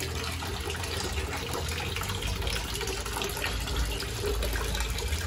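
Water splashing steadily into a backyard concrete fish pond from its small waterfall, with a low steady rumble underneath.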